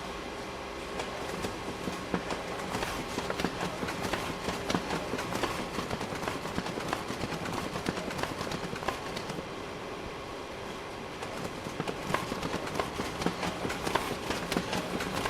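Photocopier running: a steady motor hum with rapid mechanical clicking and clatter, which eases for a couple of seconds about ten seconds in and then starts again.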